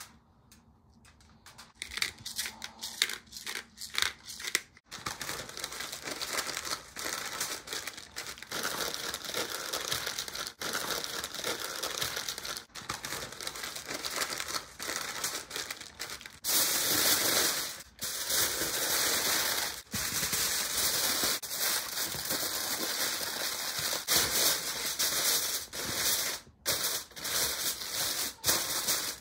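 Aluminium foil and parchment paper crinkling and rustling as they are folded and pressed around a rack of ribs, starting about two seconds in and growing louder past the middle.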